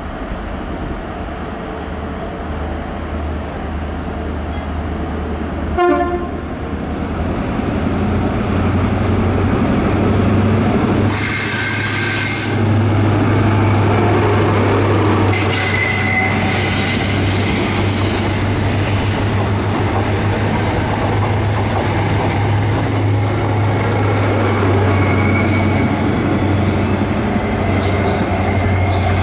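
Intercity 125 (Class 43 HST) power car MTU diesel engines running, a steady low engine note growing louder from about eight seconds. A short horn-like note sounds about six seconds in, and high-pitched tones ring out over the train noise around twelve seconds and again from about fifteen to twenty seconds.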